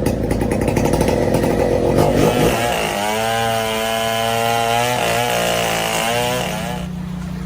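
A small engine running loud and rough, then holding a wavering pitch for a few seconds before settling to a lower, quieter steady hum near the end.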